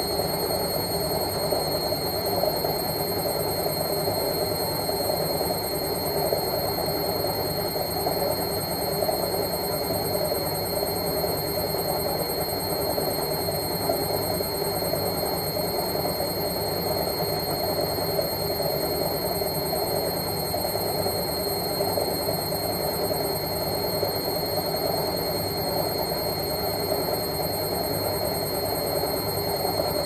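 Indesit front-loading washing machine on its spin cycle, the drum spinning at a steady speed with a thin, steady high-pitched whine over the running noise.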